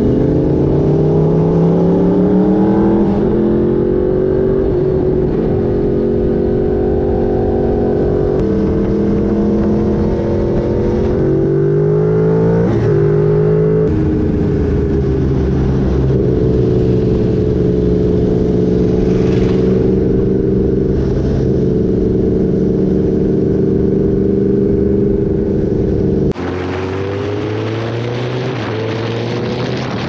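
Inline-four sport bike engine running hard at speed, its pitch climbing and dropping back sharply at gear changes. About 26 seconds in it cuts to a Suzuki Hayabusa's engine heard from its own saddle, pulling up in pitch with wind rush over it.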